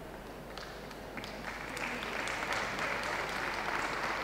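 Audience applauding: a few scattered claps about half a second in, swelling into steady applause from about a second and a half in.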